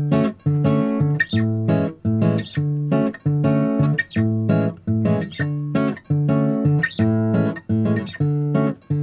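Background music: an acoustic guitar strumming short chords in a steady rhythm, with brief stops between the strokes.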